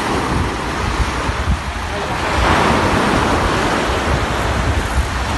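Sea surf washing onto a sandy beach, with wind buffeting the microphone; the surf swells louder about two and a half seconds in.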